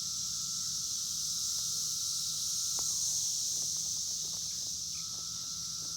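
Steady high-pitched insect chorus, with a thinner single tone that fades out about halfway and comes back near the end, and a few faint clicks.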